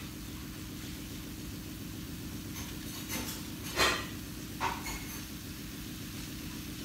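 Steady low hum with three short sharp clicks a little past the middle, the second the loudest.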